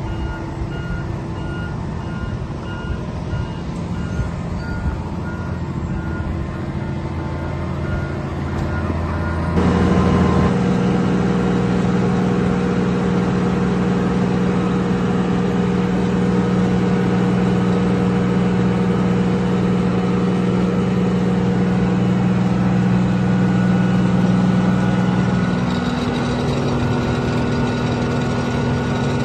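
Wirtgen W1200F cold planer's diesel engine running, with a reversing alarm beeping over it at first. About ten seconds in, the beeping stops and the sound changes abruptly to a louder, steadier engine hum, which shifts again near the end.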